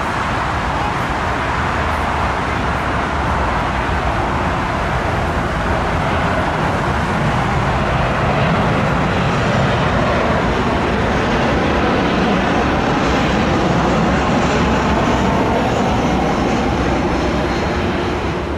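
Jet noise of a Boeing 737's CFM56 engines on final approach to land: a steady rushing sound that grows somewhat louder about halfway through as the airliner comes near, with a faint high whine from the engine fans.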